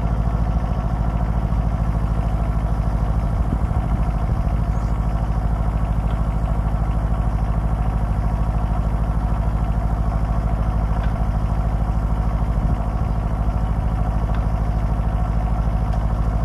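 Mini excavator engine running steadily while the machine holds and lowers a septic tank on a strap.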